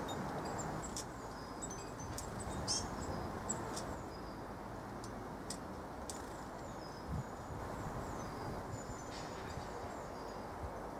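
Small garden birds calling with short, high, thin chirps and ticks, scattered irregularly, over a steady low background hiss.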